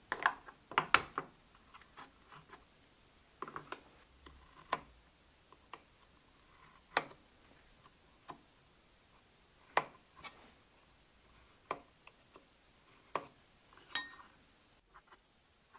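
Scattered taps and clicks of wood and steel tools handled on a workbench: a cluster of louder knocks as wooden pieces are set down in the first second or so, then single light taps every second or two as a steel square and marking knife are laid on and moved over the board. Near the end one tap leaves a brief metallic ring.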